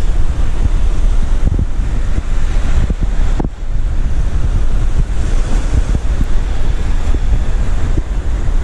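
Strong wind buffeting the microphone as a heavy low rumble, with surf washing on the shore behind it; the wind drops briefly about three and a half seconds in.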